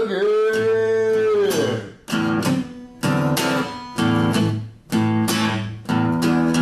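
Acoustic guitar music: a long held note bends down and fades out about two seconds in, then guitar chords are strummed in short phrases with brief gaps between them.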